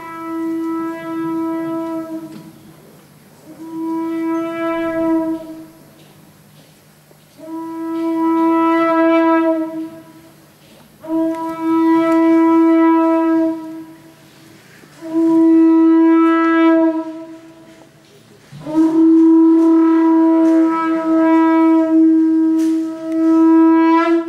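Conch shell trumpet blown in six long blasts on a single steady note, with short gaps between them; the last blast is the longest.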